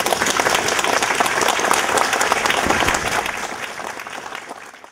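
Audience applauding: many hands clapping at once, dying away over the last couple of seconds.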